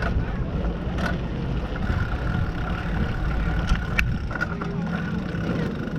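Steady low rumble of wind and rolling noise from a moving bicycle, with a faint steady whine from about two seconds in until about four seconds in, and a few sharp clicks.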